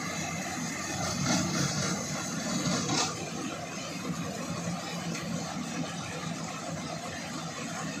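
Engine of an Iseki rice harvester running steadily, with one sharp knock about three seconds in.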